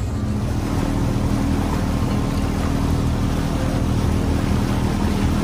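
Sightseeing tour boat under way, its engine running with a steady low hum under a constant rush of wind and churning water.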